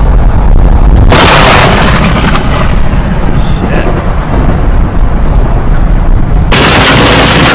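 Loud thunder from nearby lightning: a heavy low rumble, with a sudden sharp crack about a second in and another near the end.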